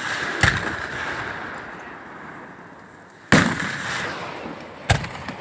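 Aerial fireworks shells bursting: three sharp booms, about half a second in, just past three seconds (the loudest) and near the end, each trailing off in a long rolling echo.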